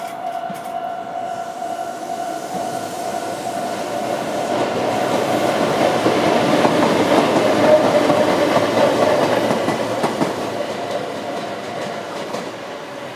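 Four Meitetsu electric locomotives of the Deki 400, Deki 600 and EL120 classes, coupled together, passing over a level crossing with wheels clacking over the rail joints. The sound builds to its loudest a little past the middle and then fades as the train moves away. A level-crossing warning bell rings steadily in the first few seconds and dies out.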